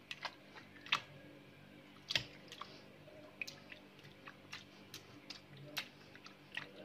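Metal masher pressing soft boiled tomatoes in a steel pot: faint, irregular wet squelches and light clicks.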